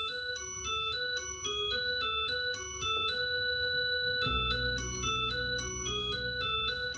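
Music played back through Wharfedale Denton 80 bookshelf speakers: a quick, repeating run of clear, steady keyboard notes, joined by a deep bass line about four seconds in.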